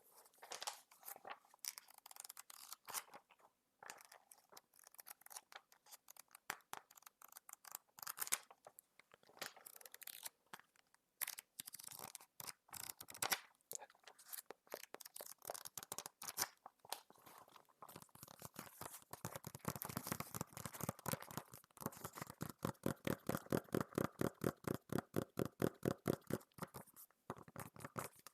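Hands working a paper magazine close to the microphone: scattered scratches, rustles and light clicks on the paper, then from about two-thirds of the way in a fast, even run of taps, about five a second, that stops shortly before the end.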